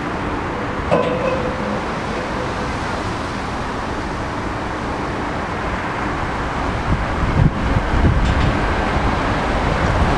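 Freight wagons rolling past at close range: a steady rumble of wheels on the rails, with a brief squeal about a second in. In the last few seconds wind buffets the microphone.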